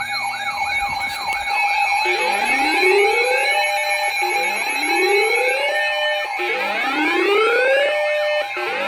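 Electronic emergency-alert tone sounding before a weather warning. A steady tone runs under siren-like sweeps: a fast up-and-down warble of about four cycles a second for the first two seconds, then slow rising sweeps repeating about every two seconds.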